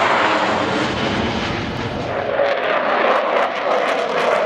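Jet engine noise of the Su-27 and MiG-15 UTI fighters in flight, a loud steady rush with a tone falling in pitch at the start. A crackling texture joins in from about halfway.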